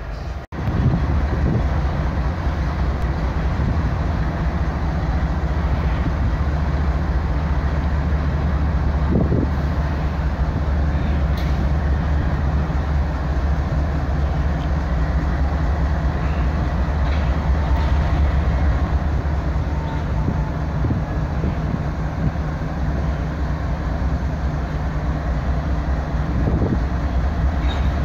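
GE ES44AC diesel-electric locomotive's engine running with a steady low drone, after a short break in the sound near the start.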